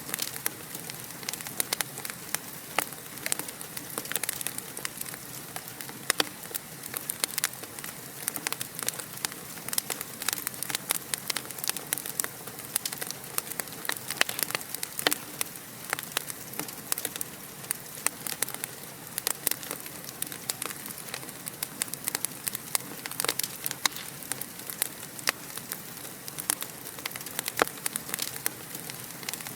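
Wood fire crackling in a fireplace: a steady hiss with dense, irregular sharp pops and snaps.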